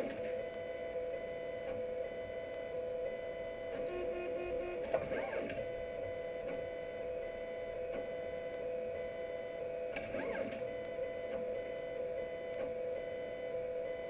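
3D printer at work, its stepper motors giving a steady whine of several held tones, broken about every five seconds by a brief flurry of shifting tones as the print head makes a quicker move.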